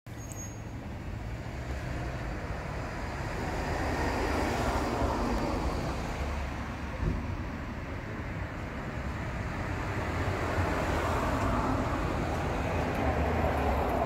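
Outdoor road traffic noise, a steady rumble that swells and fades as vehicles pass, with a single small knock about halfway through.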